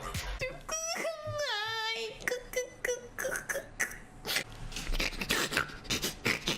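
A woman making wordless mouth noises: a high, pitched squeal that falls in pitch about a second in, then a quick run of short, evenly pitched syllables, then a string of clicking and breathy beatbox-like sounds.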